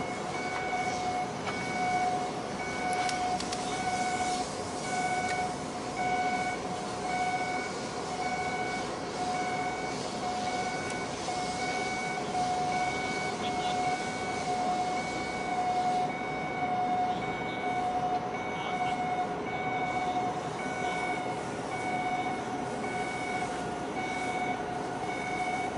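Electronic warning beeper sounding a steady, evenly repeating beep, a little faster than once a second, over a constant background noise of harbour machinery.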